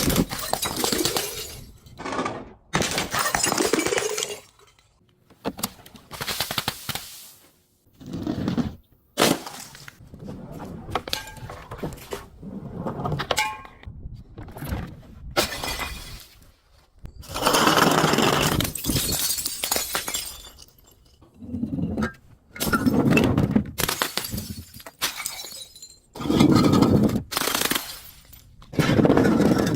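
Glass bottles and other crunchy objects being broken and crushed: about a dozen separate crunching, shattering bursts, each lasting a second or two, with short pauses between them.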